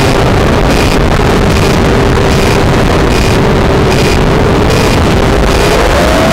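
Multirotor drone's motors and propellers heard from its onboard camera: a loud, steady whine over propeller wash, rising in pitch near the end as the throttle is raised.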